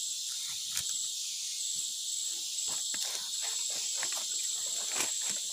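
Steady, high-pitched chorus of rainforest insects, with a thin whine held on one note. Scattered footsteps and rustles in leaf litter and mud sound through it.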